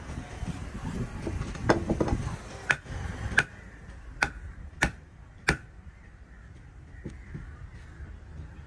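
A heavy fish knife cutting into a large spotted grouper at the throat and gills: a run of about six sharp knocks, roughly two-thirds of a second apart, starting a couple of seconds in and stopping past the middle, with a couple of fainter knocks after.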